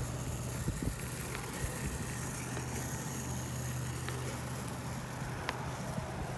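Bicycle rolling along an asphalt path: a steady low hum from the tyres on the pavement, with a few faint ticks.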